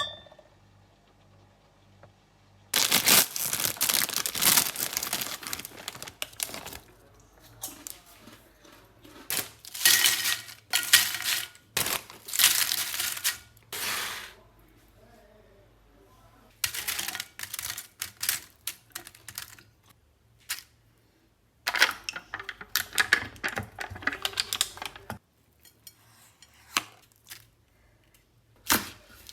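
Kitchen food-prep handling noises: rustling, crinkling and clattering in stretches of a few seconds, with short pauses between.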